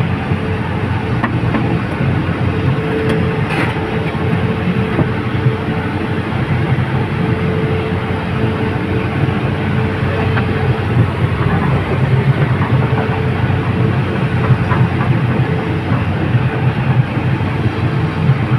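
Excavator engine running steadily: a continuous loud drone with a held tone.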